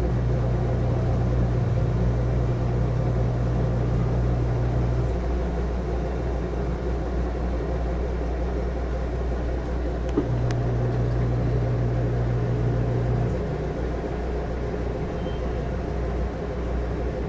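Samsung washing machine running, a steady mechanical noise with a low hum from the drive that runs for about five seconds, stops, then comes back for about three seconds. A single click about ten seconds in.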